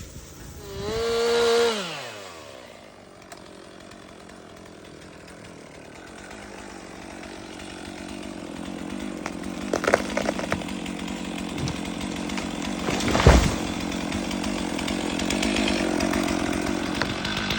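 A chainsaw revs high and drops back, then runs steadily, growing louder toward the end, as it cuts into a tree being felled. Two sharp cracks come through about ten and thirteen seconds in.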